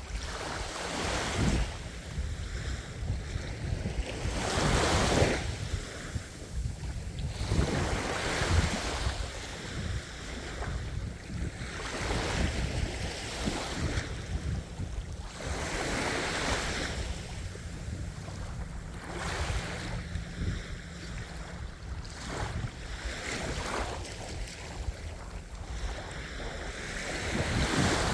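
Ocean waves breaking and washing on the shore, surging and fading every few seconds over a steady low rumble of surf, with wind on the microphone.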